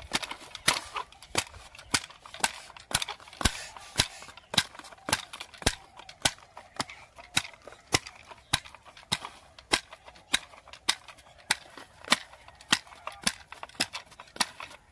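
A hoe chopping into dry, hard soil to dig a furrow: a steady rhythm of sharp strikes, a little under two a second, with fainter scrapes and knocks of loosened earth between.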